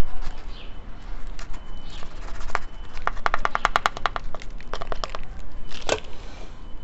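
A plastic scoop and potting mix being tipped into a clay planter around succulents, with scattered scrapes and knocks; the loudest knock comes near the end. In the middle there is a rapid run of clicks, about ten a second, and birds chirp faintly in the background.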